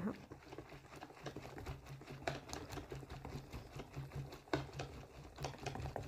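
Metal wire whisk beating cake batter in a plastic bowl: a fast, irregular run of light clicks and taps as the wires strike the bowl.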